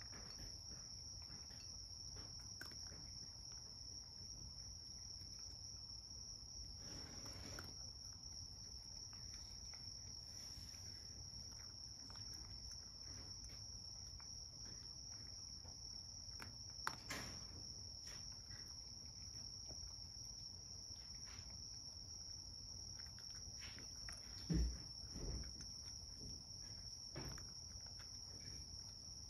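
A cat eating wet food from a ceramic bowl, with faint scattered licking and chewing clicks. A steady high-pitched whine runs underneath, and there is a short low thump near the end.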